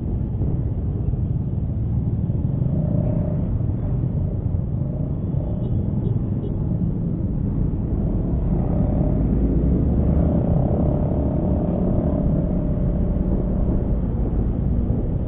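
Riding a Honda Scoopy automatic scooter in traffic: a steady low rumble of wind and road noise on the microphone, with the scooter's engine running under it. A faint steady whine comes and goes through the middle.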